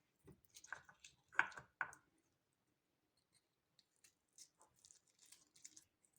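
Boiled garlic cloves being peeled by hand, with soft squishing and tearing of the papery skins. A few louder handling knocks come in the first two seconds, then faint crackling.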